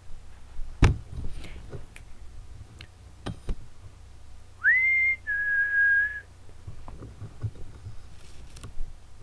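A person whistling two clear notes: a short one sliding up and then holding, followed by a slightly lower, longer one, about four and a half seconds in. Earlier come a few sharp thumps, the loudest about a second in.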